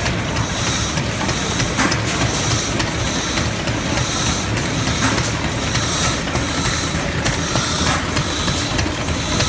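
Single-cylinder Lister D stationary engine running, driving a Mather & Platt water pump and air compressor. Over a steady mechanical run there is a continuous hiss that dips in a regular beat about once a second.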